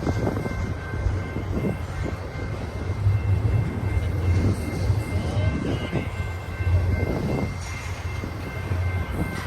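Long double-stack container train rolling past, a steady low rumble of cars on the rails with faint, steady high-pitched tones above it.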